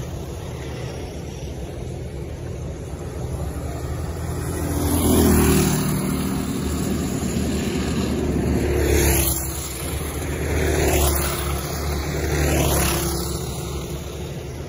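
Predator-class dirt-track racing karts running laps, their small single-cylinder engines droning steadily. Four times in the second half a kart passes close, and the sound swells louder with the pitch rising and then falling.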